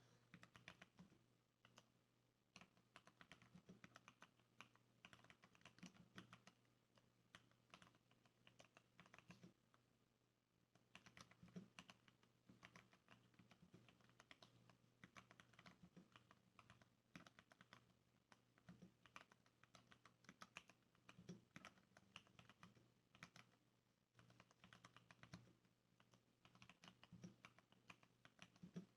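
Varmilo mechanical keyboard with lubed Cherry MX Brown switches and sound dampening being typed on: a faint, fast, uneven stream of soft keystrokes. The typing pauses briefly about ten seconds in and again near twenty-four seconds.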